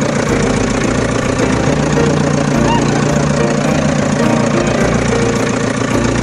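A loud, steady engine-like running sound, with held tones that shift in pitch now and then.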